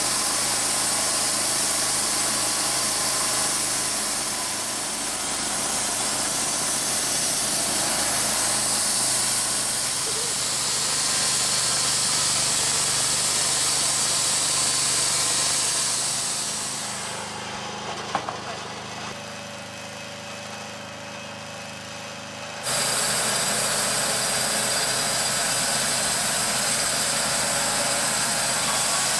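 Timberking B-20 portable bandsaw mill sawing a walnut log: the mill's engine running under load with the steady hiss of the band blade cutting. A little past halfway the cutting noise falls away to a quieter engine hum for about five seconds, then the full sawing noise comes back suddenly.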